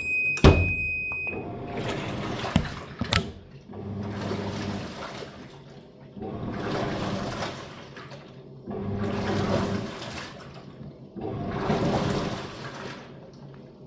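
Top-load washing machine's lid-open warning beep, a steady high tone that stops about a second in, then a thump and two clicks. After that, water surges and sloshes in the tub in four swells about two and a half seconds apart.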